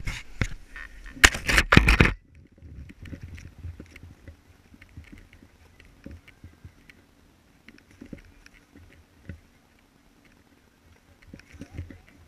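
Knocks and rubbing from an action camera being handled and moved into place, loudest in the first two seconds. After that come faint scattered clicks and taps.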